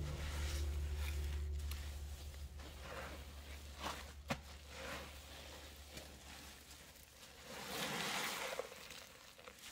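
Wet paste of cleaning powder and liquid cleaner squeezed and worked by hand, with two sharp clicks about four seconds in and a louder stretch of squeezing near the end. A low hum fades away in the first few seconds.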